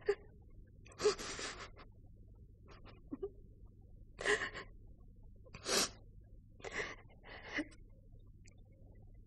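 A woman's breathy gasps and sighs, about six short breaths at irregular intervals.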